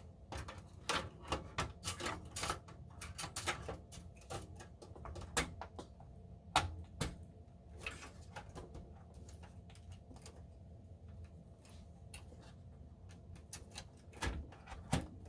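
Irregular clicks and knocks of a graphics card and its metal bracket being worked into the PCIe slot of a computer tower. The sounds are denser in the first half, then sparser, with a louder click near the end.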